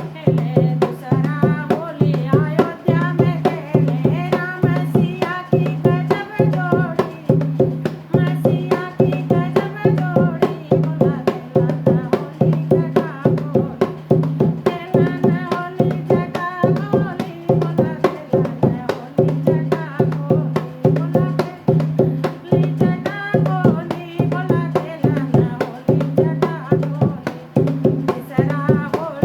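A Hindi devotional Holi song to Shiva (Bhole): a voice singing over a fast, steady drum beat, with a low note held underneath.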